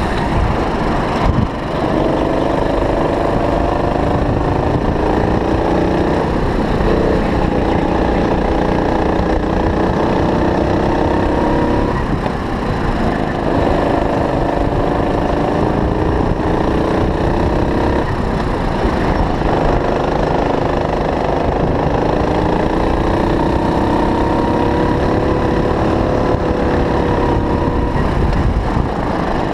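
Go-kart engine heard from on board, running hard with its pitch climbing and then dropping back briefly every few seconds as the kart lifts off for corners.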